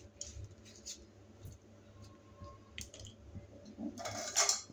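Quiet room tone with a low steady hum and a few faint ticks, and a brief rustle about four seconds in.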